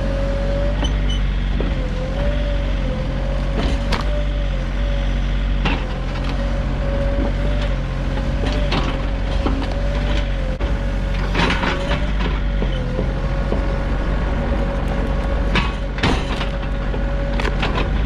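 Sany SY35U mini excavator's diesel engine running steadily, with a thin whine that wavers slightly in pitch. Several sharp clanks come through it, near the middle and toward the end.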